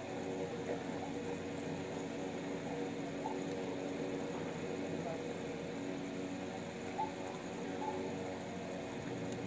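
Steady hum made of several held tones, with a few faint brief sounds over it.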